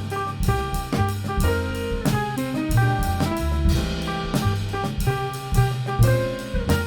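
Studio recording of a small jazz band playing: drum kit with steady cymbal and drum hits under a horn line and bass.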